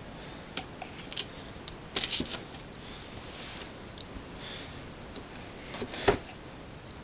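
Quiet handling of a cardboard shipping box: scattered soft taps and rustles, with a sharper knock about six seconds in.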